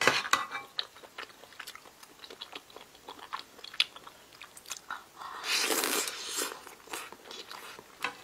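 Close-up mouth sounds of someone biting and chewing small whole octopus: many quick wet clicks, with a louder rush of noise lasting about a second a little past the middle.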